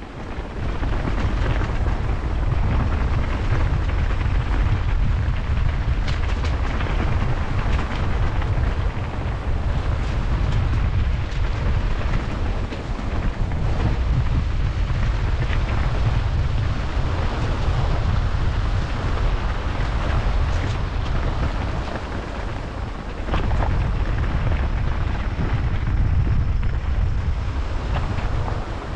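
Wind buffeting the microphone on a moving motorcycle: a loud, dense low rumble with a noisy hiss above it, easing briefly late on.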